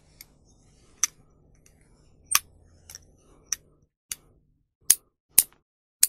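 Steel lever-type nail clipper snapping shut again and again: about seven sharp metallic clicks, unevenly spaced roughly half a second to a second apart, with a few fainter clicks between them.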